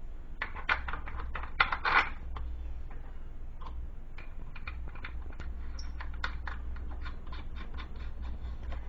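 Small metal clicks and clinks of an arbor nut, washers and a wrench being handled on a bench grinder's shaft as a new grinding wheel is fitted, with a few louder clanks a little under two seconds in.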